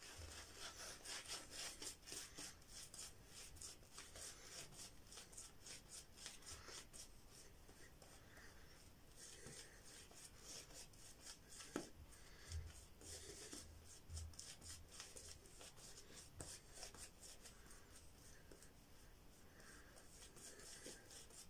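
Vielong 24 mm horsehair shaving brush working Mitchell's Wool Fat lather onto a stubbled face: faint, quick, rhythmic brushing strokes.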